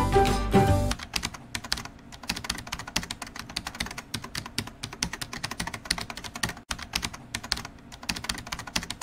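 Rapid, irregular keyboard typing clicks, a sound effect for text being typed out on screen. Music cuts off about a second in, before the clicks start.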